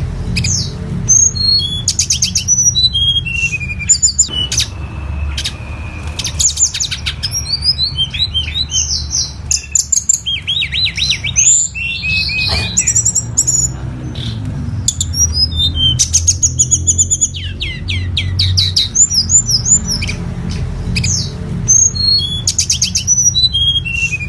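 Tledekan gunung songbird singing continuously: fast runs of high chirps, rapid trills and short whistled glides, with a steady low hum underneath.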